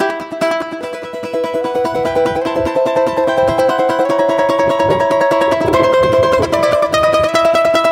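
Balalaika music: rapid tremolo picking over sustained, held melody notes.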